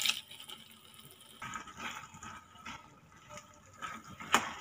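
Fried cashews and raisins tipped from a bowl into a stainless steel pan of thick bread halwa, then a metal spoon stirring and scraping through the sticky mixture, with a sharp tap of the spoon against the pan near the end.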